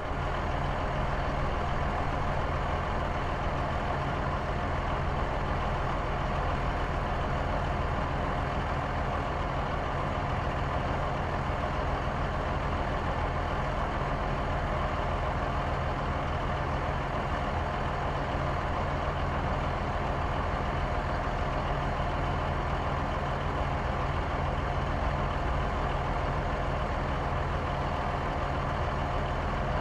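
A heavy vehicle's engine idling steadily, with no change in pitch.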